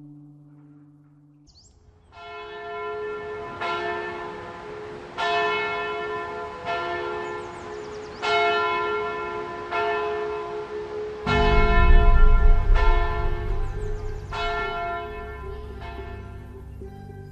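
Church bell ringing, one stroke about every second and a half, each stroke ringing on into the next. It starts about two seconds in, and a low rumble joins about two-thirds of the way through.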